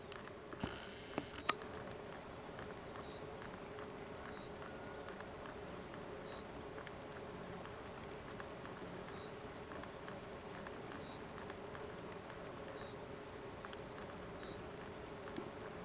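Steady, high-pitched chorus of insects buzzing without a break, with three short sharp clicks about a second in.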